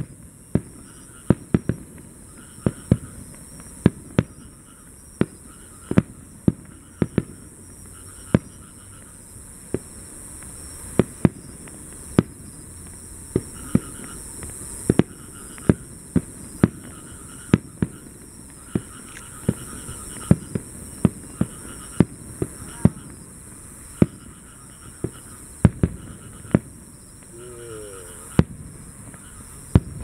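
Aerial fireworks bursting overhead: dozens of sharp bangs, irregularly spaced, sometimes two or three in quick succession.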